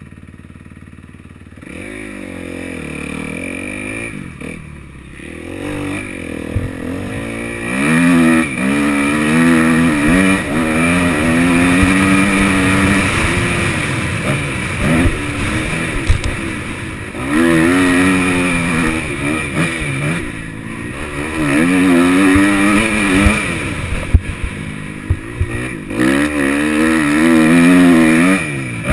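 Kawasaki KX250F four-stroke single-cylinder motocross engine heard from the rider's helmet as the bike rides a dirt track. It revs up and down through the gears over and over, faint at first and loud from about eight seconds in. The throttle is shut off briefly several times.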